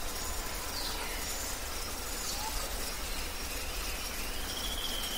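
Outdoor ambience: a steady low rumble and hiss with a few faint bird whistles, one falling about a second in and another held near the end.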